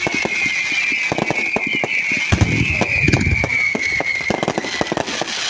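Fireworks going off in quick succession: many sharp bangs and crackles, with deeper thumps around the middle. A high whistle runs along with them, slowly falling in pitch and fading out near the end.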